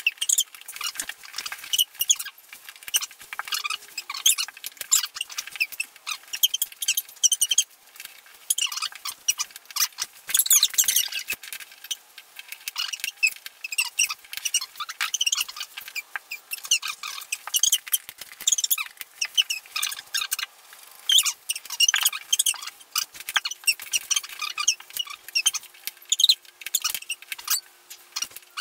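Sped-up timelapse audio: an unbroken, rapid stream of high-pitched squeaks, chirps and clicks with no low sound at all. It is room sound from play with cardboard jigsaw pieces on a wooden floor, played back many times too fast.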